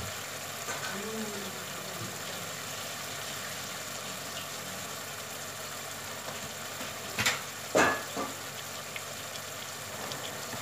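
Steady hiss and low hum of a pot of fresh tomatoes cooking on a gas stove. Two sharp knocks come about seven and eight seconds in.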